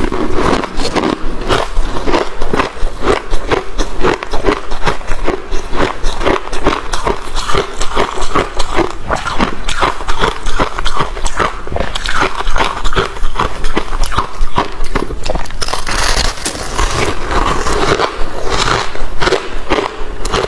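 Close-miked chewing of freezer frost: a continuous run of crisp crunches and crackles as the packed ice breaks between the teeth.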